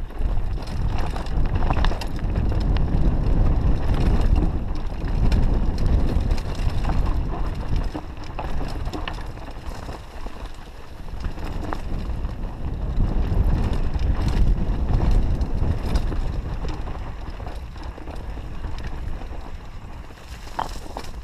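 Wind buffeting the camera microphone on a fast mountain-bike descent, with the tyres of a Trek Fuel EX 8 full-suspension bike crunching over a stony singletrack and many sharp clicks and knocks from the bike and loose stones.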